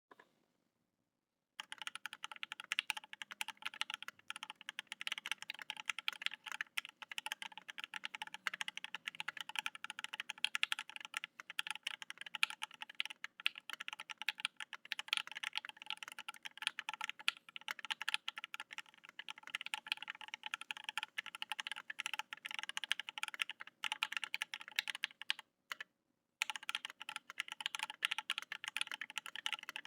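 Fast, continuous typing on a Think 6.5 mechanical keyboard with 43 Studio Toy switches (lubed with Krytox 205g0 and filmed) and PBT keycaps, with no case foam: a dense run of keystroke clacks. It starts about a second and a half in and pauses briefly near the end before going on.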